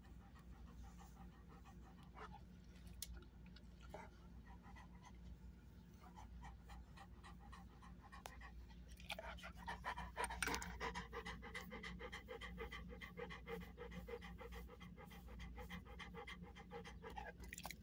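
A dog panting close to the microphone in quick, rhythmic breaths. The panting is faint at first and grows louder about nine seconds in.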